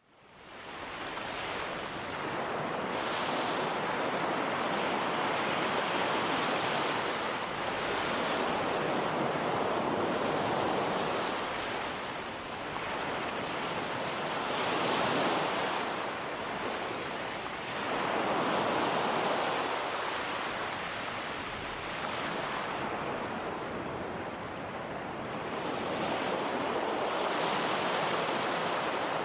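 Ocean surf: waves breaking and washing in, swelling and ebbing every few seconds, fading in over the first second.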